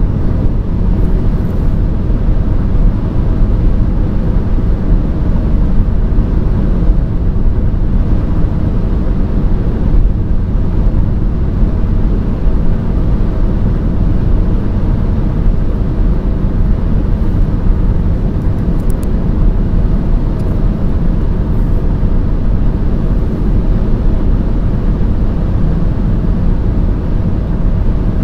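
A car driving steadily: constant low road and engine rumble that stays even throughout, with no speed changes.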